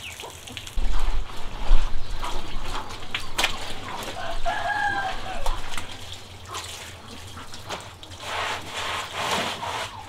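Water from a garden hose running and splashing onto a wet concrete floor, with chickens clucking and a short chicken call about halfway through. A few knocks sound about a second in.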